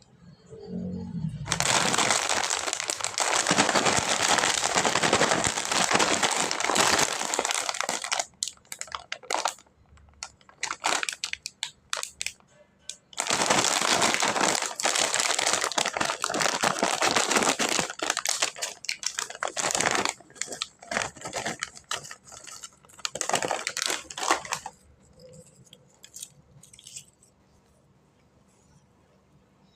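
Plastic snack packaging crinkling and rustling as it is handled, in two long dense spells with scattered crackles between and after them.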